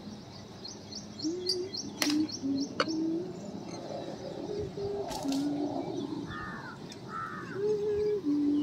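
Doves cooing in low, held notes that step between a few pitches, with small birds chirping; a quick run of high chirps comes in the first two seconds.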